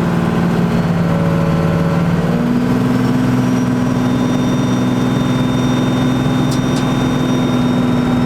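12-valve Cummins inline-six turbodiesel with compound turbos, pulling the truck along the road; its engine note steps up about two seconds in and then holds steady. A faint high whistle sounds over it from about four seconds in.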